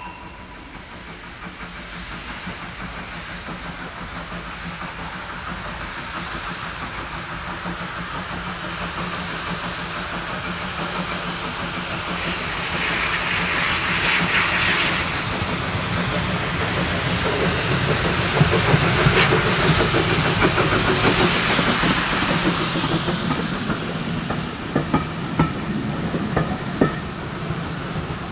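LB&SCR A1 Terrier tank engine approaching and passing with its cylinder drain cocks open: a steady hiss of steam that builds, loudest as the engine goes by. Near the end a few sharp clicks of the carriage wheels over the rail joints as the train draws away.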